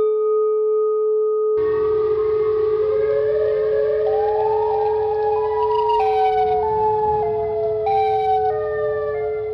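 Custom emergency alert alarm: a steady electronic tone, joined about one and a half seconds in by a hiss and a siren-like tone that climbs in steps and then steps back down.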